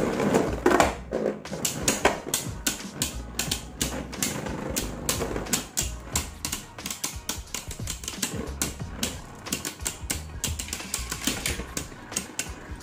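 Two Beyblade Burst spinning tops clashing in a plastic stadium: a dense, irregular run of rapid clicks and clatters as the spinning tops knock against each other and scrape across the stadium floor.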